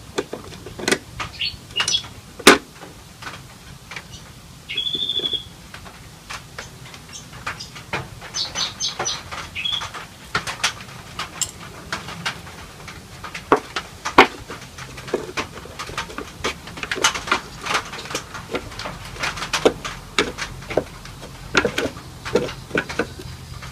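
Irregular clicks, taps and small knocks of radio parts and tools being handled on a workbench while a valve radio's cabinet is taken apart, with a sharp loud knock about two seconds in. A few brief high-pitched tones come through near the middle.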